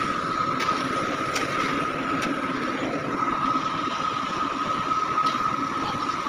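A steady machine drone with a constant whine, and a few sharp scrapes of a hoe or shovel biting into gravel, about a second apart at first.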